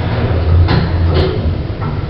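Old original express lift running: a steady low rumble from the car and its machinery, with two sharp clunks a little under a second in, half a second apart.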